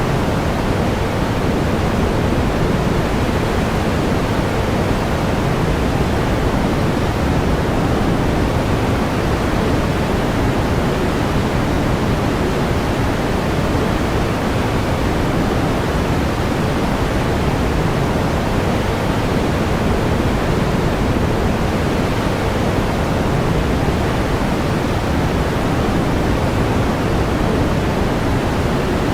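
Steady pink noise: an even, unchanging hiss weighted toward the low end, with no events or variation.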